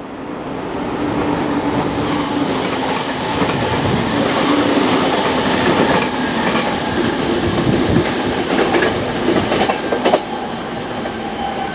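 JR Kyushu 813-series electric multiple unit passing close by, a loud rush of wheel and rail noise with clattering. It builds from about a second in and drops off about ten seconds in.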